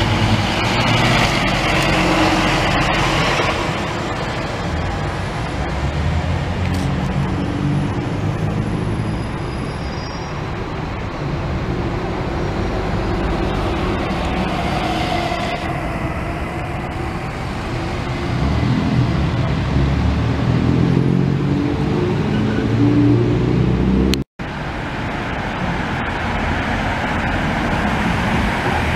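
Road traffic on a town street: route buses and cars driving past, with a steady engine drone and tyre noise. Late on, the sound drops out completely for a split second.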